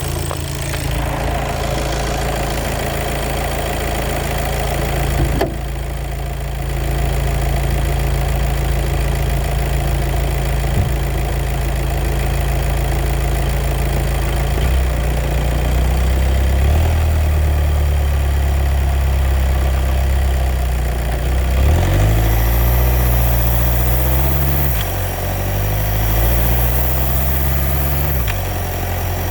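Car engine running through a DSG DQ250 six-speed wet dual-clutch gearbox, giving the clutch noise that is the fault complained of. The engine note steps up about halfway through and wavers up and down in pitch over the last several seconds, with a single click about five seconds in.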